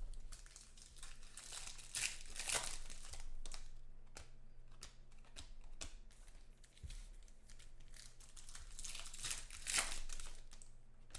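Foil wrappers of Bowman Chrome trading card packs crinkling and tearing as they are ripped open by hand. There are two main bursts, about two seconds in and again near the end, with light clicks between.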